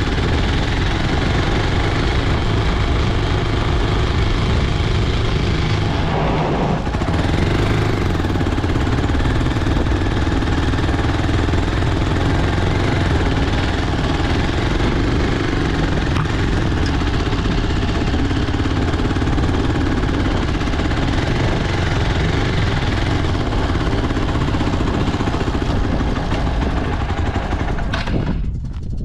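Hero Xpulse 200 4V Pro motorcycle's single-cylinder engine running steadily as the bike rides over a field, with a brief break in the engine note about six seconds in. The sound drops away near the end.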